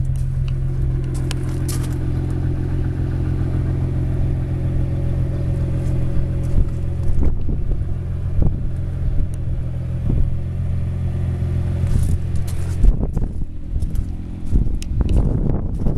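Nissan GT-R's 3.8-litre twin-turbo V6 idling steadily, with a few light clicks and knocks. About three-quarters of the way through the idle grows fainter, and scuffing and wind gusts on the microphone take over.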